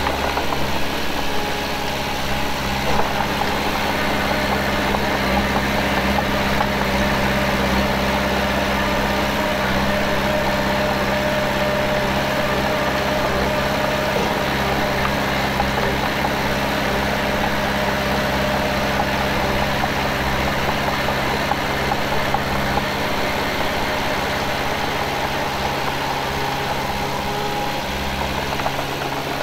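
Diesel engine of heavy earthmoving machinery running steadily. Its note dips slightly about three seconds in and comes back up near the end.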